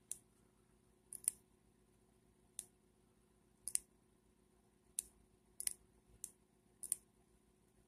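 Tines of a Waterman 52V's 14k gold flex nib clicking as it draws on paper: about a dozen short, sharp clicks at irregular intervals roughly a second apart, several in quick pairs.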